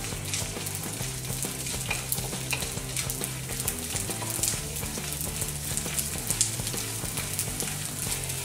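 Edible gum (gond) frying in hot ghee in a wok, sizzling with scattered crackles as the pieces puff up. A wooden spatula stirs and scrapes through it.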